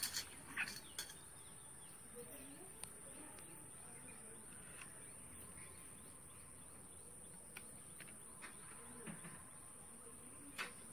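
Soft clicks and taps as okra pods are handled in a steel bowl and cut on a bonti blade, over a steady high whine. The clearest taps come in a quick cluster right at the start and once more near the end, with a few faint ticks between.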